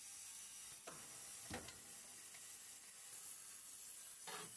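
Digital ultrasonic cleaning tank running with a steady sizzling hiss from the bath, just started on a 20-minute cleaning cycle. A few faint knocks, the last near the end as the stainless lid is set on the tank.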